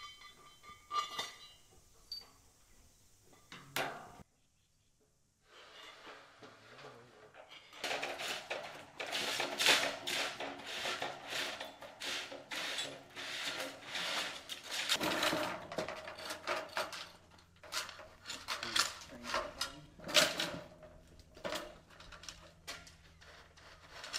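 Clinks, knocks and clatter of metal parts being handled during assembly: a steel roller chain and pliers, then aluminium track sections being slid and fitted together. A low steady hum comes in about midway.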